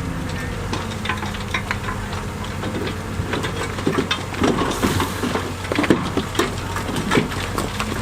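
Heavy diesel earthmoving machinery running steadily while large stones knock and clatter against one another and the steel, most densely in the middle few seconds.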